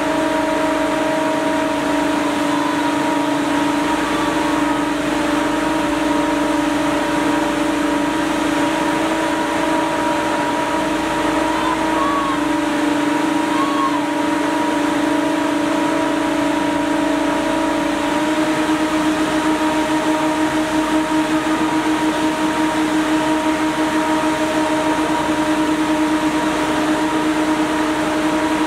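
Motor-driven pump unit powering a scooter motion-gimbal rig, running with a steady hum. About two-thirds of the way in the hum begins to pulse rapidly, as if under changing load.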